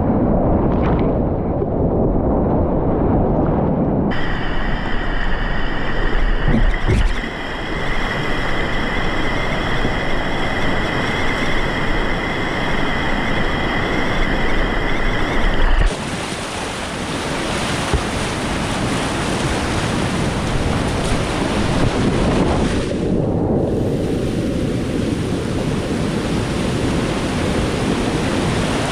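Rushing whitewater of a river rapid heard from inside the run of a kayak, a loud continuous churning. The sound is muffled for the first few seconds and dulls again briefly after about 23 s, as water washes over the camera.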